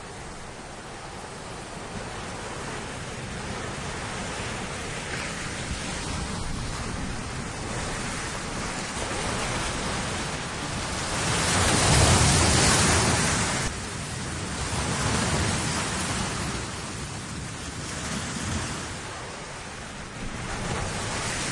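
Sea surf, a rushing wash that swells and eases in slow waves. It is loudest about twelve seconds in and drops back suddenly soon after.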